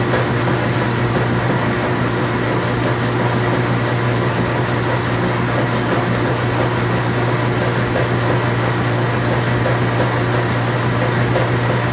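An engine running at a steady speed: a constant low hum with a faint steady whine above it, with no change in speed.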